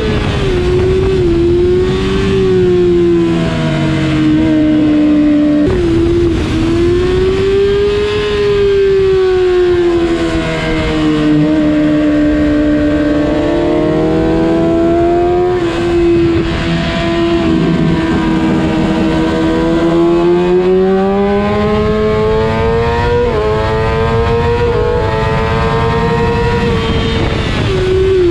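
Kawasaki ZX-6R inline-four motorcycle engine running at high revs, its pitch sweeping up and down as the bike speeds up and slows, with a few abrupt steps in pitch.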